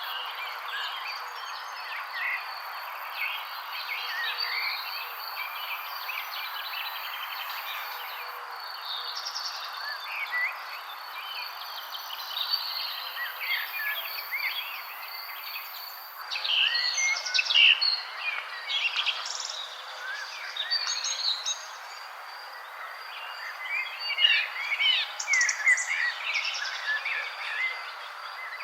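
Several songbirds chirping and trilling in quick, overlapping calls, busiest in two spells past the middle and near the end, over a steady background hiss and a faint, steady high tone.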